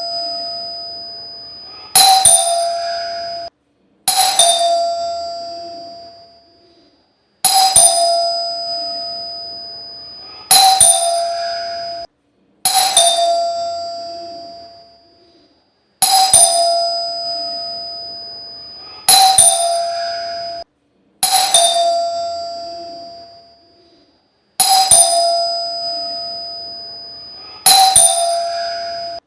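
A calling bell rung about ten times, each ring starting sharply and dying away slowly over a few seconds, spaced two to three seconds apart. Several rings are cut off abruptly before they fade.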